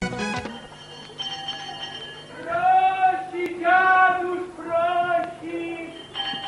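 A small hand bell rings at the start, followed by a man's voice in about four long, drawn-out sung syllables.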